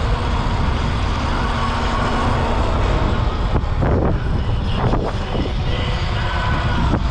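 Heavy wind rush buffeting the microphone while riding a Sur-Ron X electric bike at speed, with a faint steady whine.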